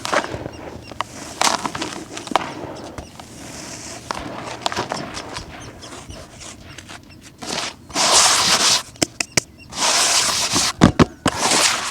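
Dry, crumbly concrete being crushed and crumbled: scattered crackles and snaps, then three longer bursts of grainy crunching about eight, ten and eleven seconds in.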